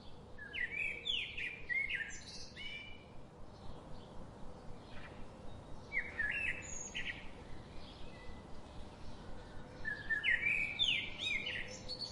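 A songbird singing three phrases of quick, sliding whistled notes, each about two seconds long and about four seconds apart, over faint forest background.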